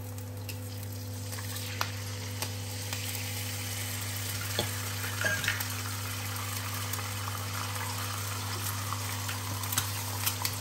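An egg frying in hot oil in a nonstick pan: a steady sizzle that builds up about a second in. Near the end come a few light clicks as a spatula goes under a pancake in the next pan.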